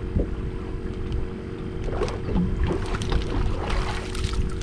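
Wind buffeting the microphone and water lapping at a small boat's hull, over a steady low hum. From about halfway through, a hooked jack splashes at the surface beside the boat.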